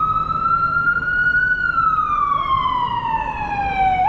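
Emergency vehicle siren wailing. The pitch climbs to a peak about a second and a half in, falls slowly for more than two seconds, then jumps back up right at the end as the next cycle starts.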